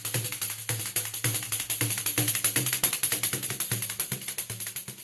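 Pandeiro played in a fast, steady samba groove: a dense stream of jingle strokes over regular low thumps from the drum head.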